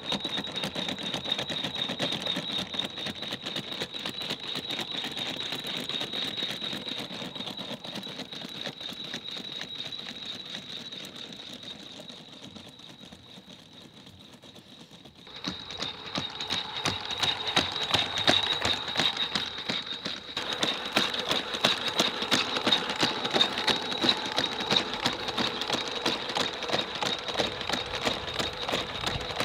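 Ghost Robotics Vision 60 quadruped robot's electric leg motors whining at a steady high pitch with fast, dense clicking as it walks. The sound fades as the robot moves away, then is suddenly louder and close from about halfway through.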